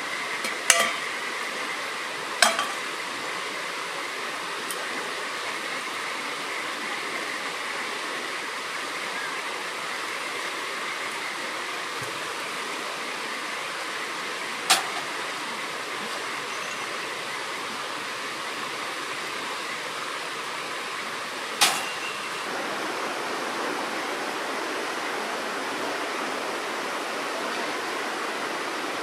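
Steady rushing of a stream, broken by four short, sharp clicks: two close together near the start, one about halfway through and one past two thirds of the way.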